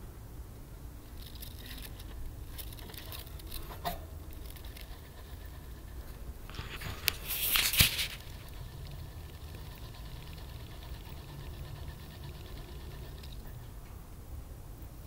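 Hamster running in a plastic exercise wheel: pattering and scratchy scraping that come and go in bursts, the loudest a little past halfway with a sharp click in it.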